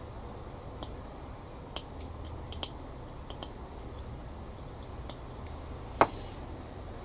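Scattered sharp clicks and snips of small plastic scale-model kit parts being worked by hand, about seven in all at uneven intervals, the loudest about six seconds in.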